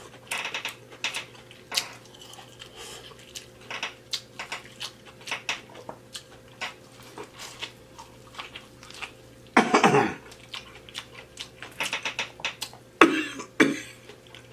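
Close-miked eating sounds: wet lip smacks, finger licking and chewing clicks from a mouthful of sauce-covered seafood-boil food. These are broken by a short vocal sound about ten seconds in and two quick throat sounds near the end.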